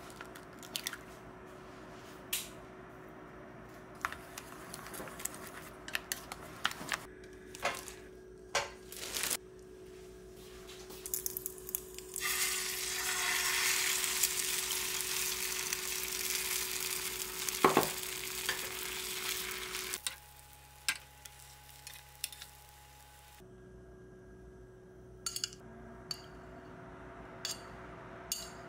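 Eggs cracked into a steel bowl and beaten, with scattered taps and clinks, then the egg mixture poured into a hot square frying pan and sizzling steadily for several seconds, the loudest part. Near the end, a few light clicks of a metal spoon scooping jam from a glass jar.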